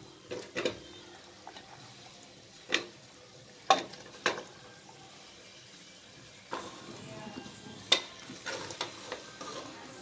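Boiled mutton pieces dropped by hand into hot masala in an aluminium pressure cooker, with a low sizzle and a few sharp knocks. In the second half a wooden spoon scrapes and knocks against the pot as the meat is stirred into the masala.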